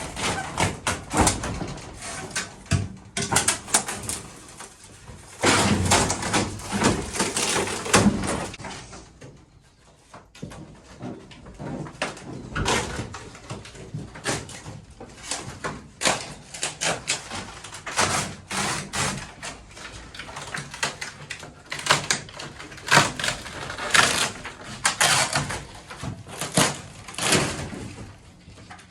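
Irregular knocks, clatter and scraping of hand demolition work on a caravan wall, as the lining and its fittings are pried and pulled off, with a quieter lull about ten seconds in.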